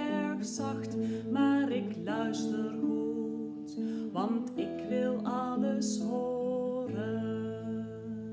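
A woman singing a Dutch children's song, accompanying herself on a nylon-string classical guitar. The singing stops near the end and the last guitar chord rings on.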